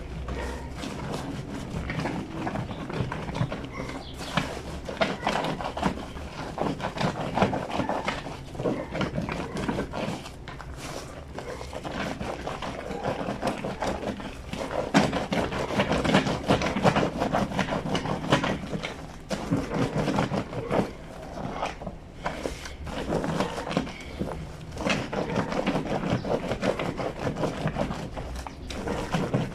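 Wet fleece sheets being scrubbed by hand on a granite washboard sink: a continuous, irregular rubbing and scraping full of small clicks, swelling and easing with each round of strokes.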